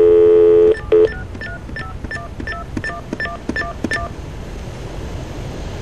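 A steady telephone dial tone that cuts off under a second in, then a quick run of DTMF keypad tones, about four a second for some three seconds, as a phone number is keyed in over the line.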